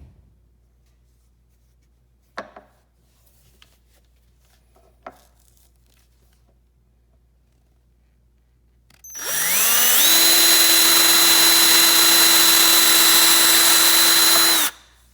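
A power drill spins up with a quickly rising whine and runs at steady speed for about five seconds, drilling into a 3D-printed plastic femur bone model, then stops suddenly. Two light knocks of handling come before it.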